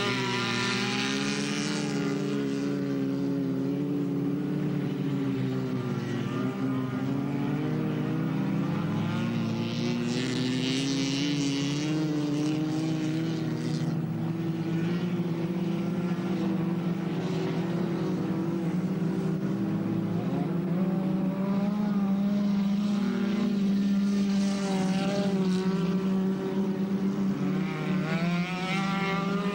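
Race car engines running hard on an ice-race track, several at once, their pitch rising and falling as cars accelerate and pass.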